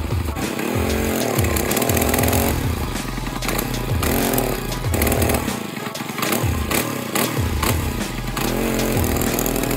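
A mini bike's small single-cylinder engine, running and revved up and back down about four times as the throttle is worked, while its carburetor is tuned to stop it bogging.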